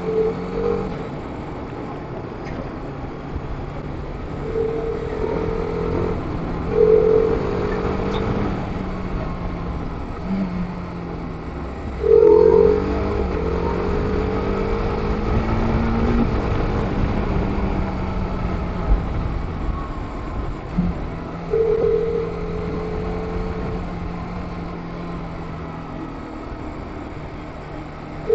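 TVS Apache RR 310's single-cylinder engine running under riding load, its pitch rising and falling with speed, over wind rushing past. Several short, loud tones cut through, the loudest about twelve seconds in.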